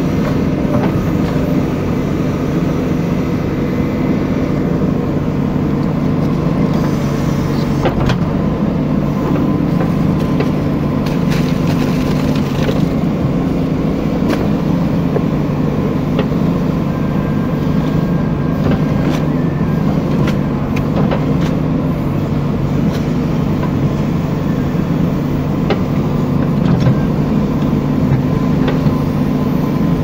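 JCB backhoe loader's diesel engine running steadily, heard from inside the cab, while the backhoe digs. Scattered knocks and clanks come through over the engine, with clusters about a third of the way in and again around two-thirds.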